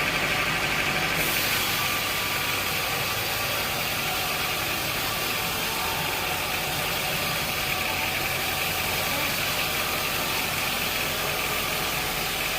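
Sawmill machinery running steadily, an even engine-like hum.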